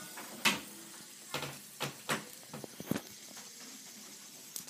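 Rainbow plastic fidget spinner with metal bearings being flicked round by hand: a handful of light, irregular clicks and taps of fingers on its arms.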